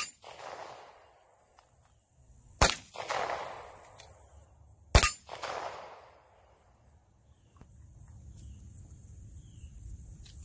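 Three gunshots about two and a half seconds apart, each followed by a ringing tail that lasts about a second.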